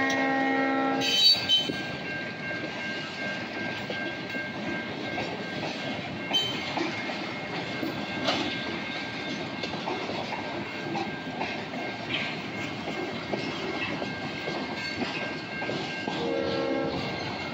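Freight train cars rolling past, a steady rumble with wheels clicking over the rail joints. A locomotive air horn is sounding at the start and cuts off about a second in, then sounds again briefly near the end.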